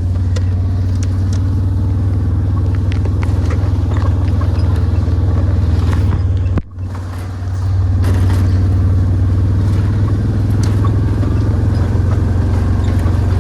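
Vehicle engine running steadily, with small rattles and clicks over it. About halfway through it drops off sharply for a moment, then comes back up to its earlier level.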